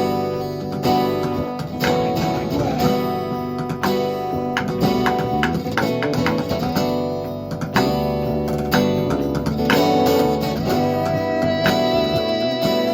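Live band playing an instrumental passage without vocals, with guitar to the fore over a steady beat.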